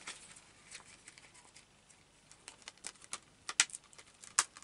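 Plastic Blu-ray case and its paper cover insert being handled: scattered light clicks and taps, with a few sharper clicks in the second half.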